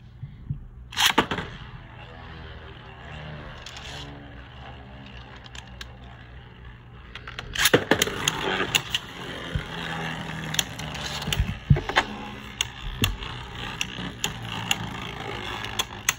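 Beyblade Burst spinning tops launched with a ripcord launcher into a plastic stadium: a sharp rip about a second in, then a spinning whirr, and from near the middle on, repeated sharp clacks and scrapes as the two tops collide with each other and the stadium wall.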